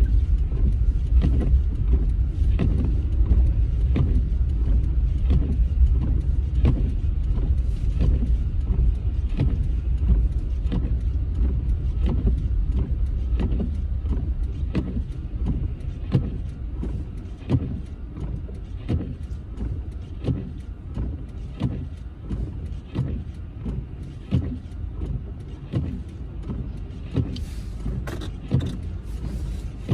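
Car's turn-signal indicator ticking steadily inside the cabin, about one and a half clicks a second, while the engine and road rumble in the background and ease off about halfway through as the car slows for the left turn.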